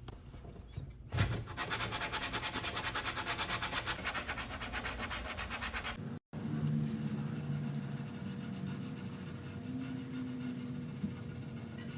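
Sandpaper on a hand-held sanding block rubbing rapidly back and forth over particle-board drawer corners, about six quick strokes a second. Partway through it breaks off abruptly and continues as a quieter, steadier rubbing.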